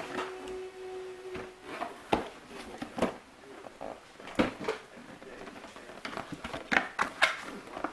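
Handling noise: a series of separate knocks and clicks as objects are moved and set down, the loudest a few seconds in and near the end. A short steady tone of about a second sounds near the start.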